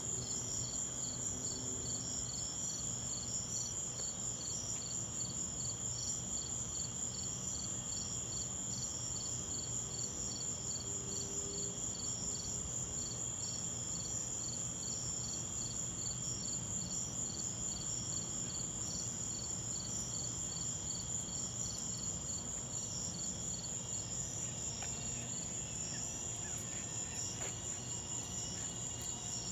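Crickets and other night insects chirping: a steady high trill with a regular pulsed chirping beneath it, over a low steady hum.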